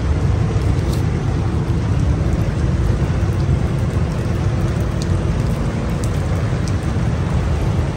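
Rain falling steadily on the tent and outside, an even hiss with a few faint drip ticks, over the low steady hum of an air conditioner running inside the tent.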